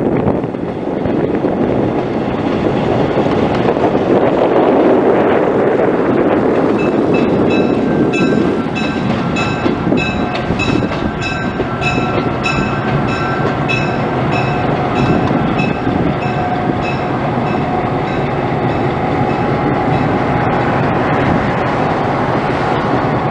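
EMD GP7 and other GP-series diesel locomotives running as they move through the yard, with steady engine and rail noise. From about a third of the way in, a locomotive bell rings steadily, about twice a second, for some thirteen seconds before stopping.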